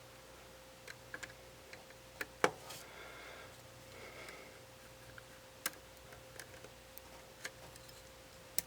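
Faint, scattered light clicks and taps of small hand tools on the plastic and metal parts of a Nikon D5500 camera as a part is pressed and worked into place. The sharpest tap comes about two and a half seconds in, over a faint steady hum.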